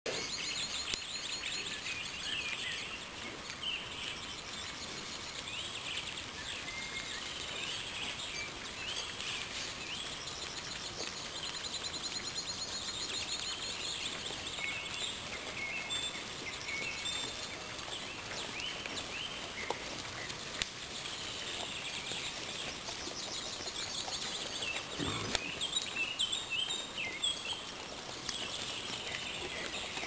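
Songbirds singing and calling from the forest edge: many short chirps and trills overlapping throughout, over a steady outdoor hiss. A brief low sound comes near the end.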